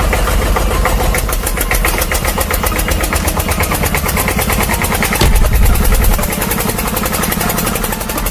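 Steady, rapidly chugging engine sound like a heavy machine running, with a heavier low rumble about five seconds in.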